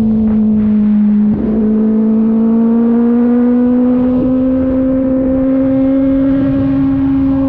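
Kove 450RR motorcycle's single-cylinder engine running under way at a steady cruise. The engine note dips briefly about a second and a half in, then climbs slowly in pitch as the revs build.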